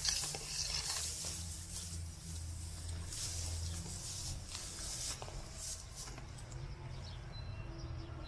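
Rustling and brushing of long grass and weeds as someone walks through them, with irregular soft rustles over a steady low rumble.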